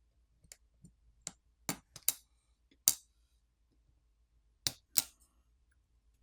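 Small sharp clicks and taps of a pry tool working on a smartphone's main board, popping off flex cable connectors: about nine irregular clicks, the loudest about three and five seconds in.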